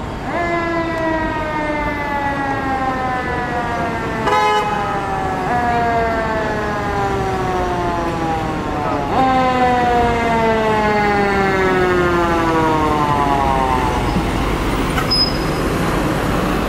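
Fire engine's mechanical siren (Federal Q type) winding down in long falling wails, spun back up twice before it coasts out about fourteen seconds in, with a brief horn blast about four seconds in. The truck's engine and street traffic run underneath.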